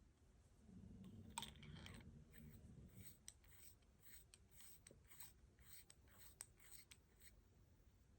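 Faint handling of a fountain pen: soft rubbing for a couple of seconds, then a run of small irregular clicks as the pen's parts are turned and fitted.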